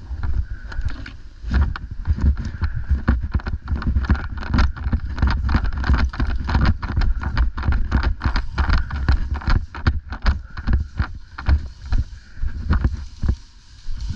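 Irregular knocks and rustling, several a second, over a heavy low rumble: footsteps and gear jostling as a camera-wearing player moves across the field, with wind buffeting the microphone.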